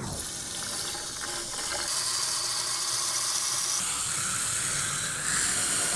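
Water from a garden hose running steadily into a camper van's fresh-water tank through the side filler inlet and infill pipe, a continuous rushing hiss that gets a little louder after about two seconds.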